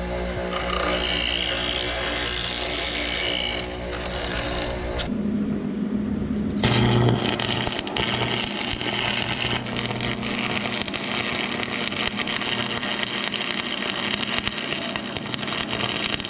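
Shop power tools running steadily during metal fabrication on a dune buggy's transaxle mount. The noise is split into a few clips, with its character changing abruptly about five seconds in and again near seven seconds.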